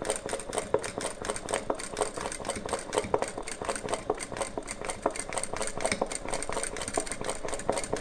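Household sewing machine running steadily, stitching an appliqué outline. The needle makes a fast, even clatter over a steady high whine.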